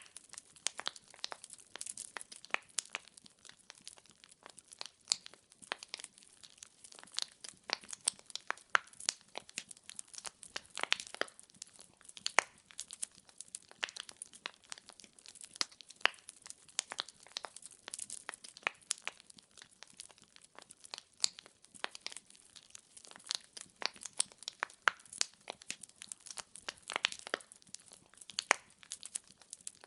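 Wood fire in a fireplace crackling: many sharp, irregular pops and snaps from the burning logs over a soft hiss.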